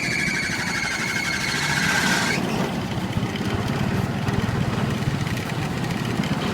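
Motorbike engines running in street traffic, a steady low hum. For the first two and a half seconds a high, steady, slightly falling tone sounds over it.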